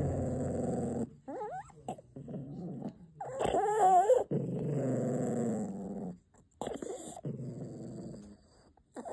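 Pomeranian growling in a string of low growls broken by short pauses, rising into a louder, higher, wavering growl-whine about three and a half seconds in. This is resource-guarding growling over its dog chew.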